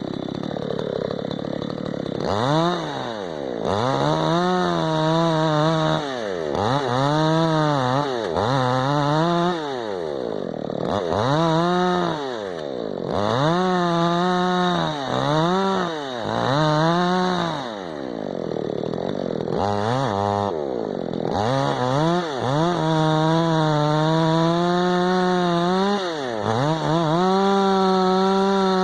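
Tekna CS 58 54 cc two-stroke chainsaw being revved again and again: about a dozen quick throttle blips, the engine pitch rising and dropping back each time. Near the end it is held at high revs for several seconds.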